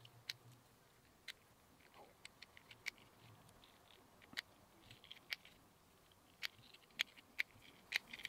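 Faint, sharp clicks, about a dozen, irregularly spaced, as lead pellets are pressed into the chambers of the Kral Puncher Breaker's rotary magazine and the magazine is handled.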